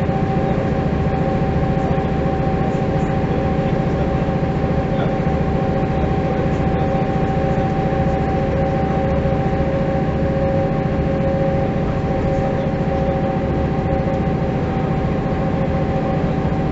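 Diesel engine of a 1985 Mercedes-Benz O405 city bus running steadily with no change in pace: a constant low throb with a steady tone above it.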